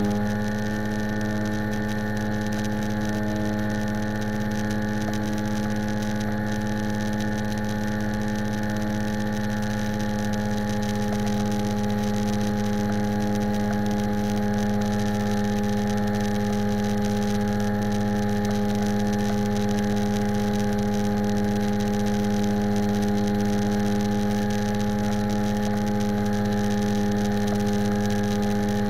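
Propeller airplane engine droning steadily in flight. The power eases back slightly just at the start, then the engine holds an even note.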